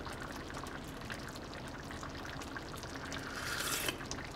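A pot of thick balbacua broth simmering with a faint, steady bubbling crackle; a little past three seconds in, a short slurp as the broth is sipped from a spoon to taste the seasoning.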